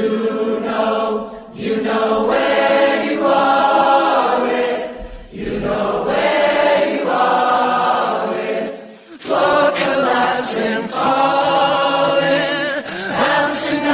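Choir singing slow, held notes in long phrases, with brief breaks about a second and a half in, five seconds in and nine seconds in.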